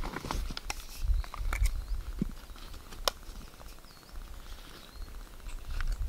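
Camera gear being handled in a backpack: rustling with scattered sharp clicks and soft knocks, and low thumps of handling.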